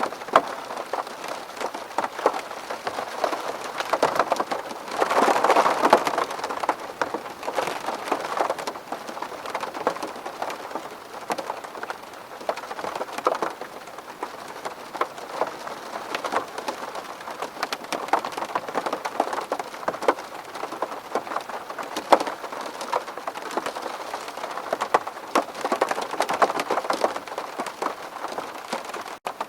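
Rain falling on a window: a dense patter of individual drops over a steady hiss, heavier for a couple of seconds about five seconds in. It drops out for an instant near the end.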